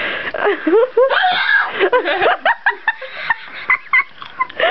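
A person's high-pitched squeals and breathless, fitful laughter, broken by many short sharp voiced bursts.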